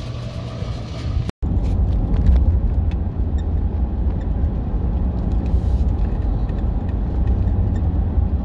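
Steady low road rumble of engine and tyres heard inside a truck's cab while driving. It starts abruptly about a second and a half in, after a brief quieter steady hum.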